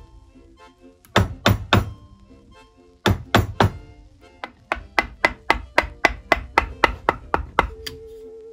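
Mallet striking a chisel, stab-cutting down into hard white oak: a group of three sharp blows, then four, then a quicker even run of about a dozen, roughly four a second.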